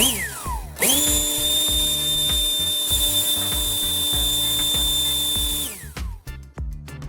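A power tool's electric motor winding down at the start, then cutting in abruptly and running at a steady high speed with a whine and hiss for about five seconds before winding down. Background music with a steady beat plays underneath.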